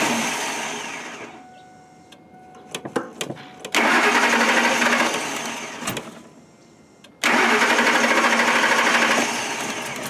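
2003 Ford F-150 engine being cranked by its starter in three tries of about two seconds each, slow to fire because carb cleaner and mass airflow sensor cleaner have just been sprayed into the intake. A few sharp clicks come between the tries, and the last try runs on at a lower level near the end.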